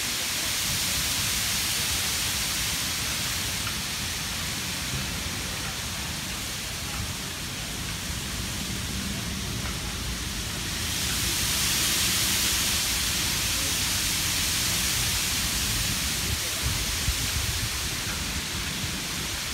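Wind rustling through thousands of small silver tabs on a suspended net sculpture and the surrounding tree leaves, a steady rain-like hiss that swells louder about halfway through, with a low rumble underneath.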